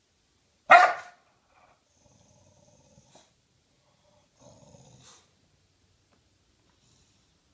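English bulldog giving one loud, sharp bark about a second in, then grumbling low growls twice, the second about four and a half seconds in.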